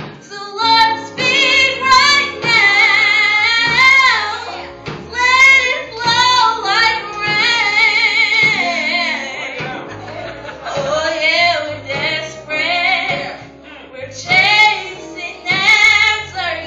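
A woman singing a gospel song into a handheld microphone, in phrases with wavering, sustained high notes, over a low instrumental accompaniment.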